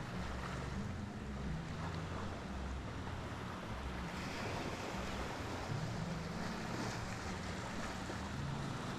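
Sea surf washing onto a beach, a steady wash of noise, with wind rumbling on the microphone.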